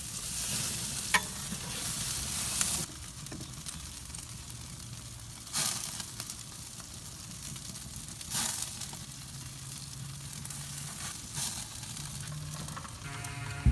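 Burgers sizzling on a Big Green Egg kamado charcoal grill: a steady hiss of fat and juices, with several short louder surges of sizzle.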